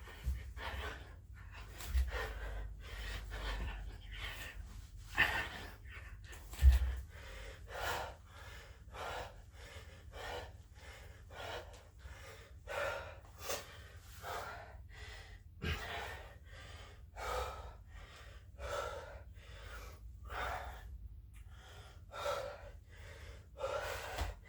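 A man breathing hard and fast, out of breath from burpees, with quick gasping breaths about one a second. A few dull low thumps come through, the loudest about a third of the way in.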